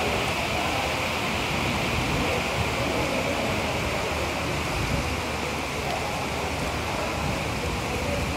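Heavy rain falling steadily, an even hiss over a low rumble.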